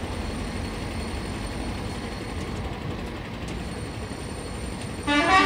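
Steady low rumble of coach engines and traffic, then near the end a short, loud vehicle horn blast.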